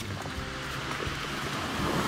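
Sea surf washing over a shingle beach: a steady rushing hiss that swells louder towards the end.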